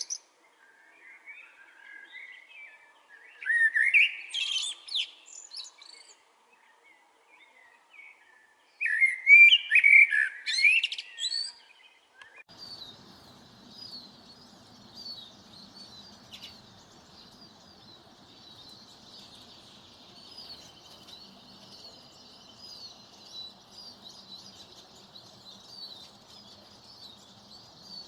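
Wild birdsong: two loud, full song phrases with quieter calls between them. About twelve seconds in, it switches abruptly to a steady, dense chorus of many small birds chirping over faint background noise.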